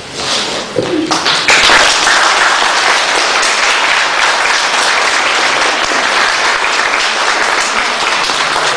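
An audience claps steadily, starting about a second in.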